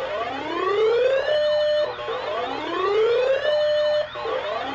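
Electronic siren sounding in repeated rising whoops. Each tone climbs for a little over a second, holds level briefly, then cuts off, about once every two seconds. A rapidly warbling high tone joins about halfway through.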